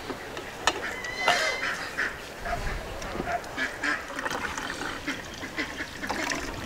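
Farmyard fowl calling with short, repeated honks and quacks.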